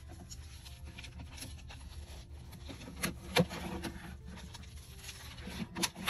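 Wrapping paper handled on a paper trimmer: soft rustling and sliding with a few sharp knocks. The loudest knock comes about halfway through and another near the end.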